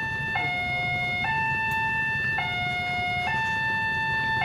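Railway level-crossing warning alarm sounding a steady two-tone hi-lo signal, switching between the higher and the lower tone about once a second, warning that a train is approaching the crossing.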